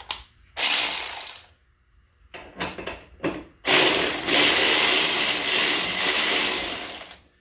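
Power tool spinning a bolt out of the motorcycle's exhaust mount: a short burst, a few brief clicks, then a long steady run of about three and a half seconds that stops near the end.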